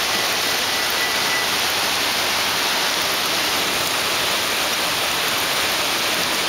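Heavy hailstorm downpour: a dense, steady hiss of falling rain and hail, unbroken throughout.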